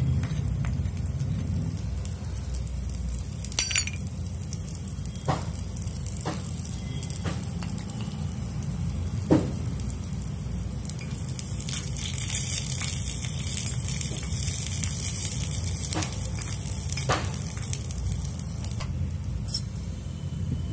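Food sizzling in a hot kadai over a wood-twig fire, with scattered sharp metal clinks and knocks of a spatula against the pan, the loudest about nine seconds in. A steady low rumble runs underneath.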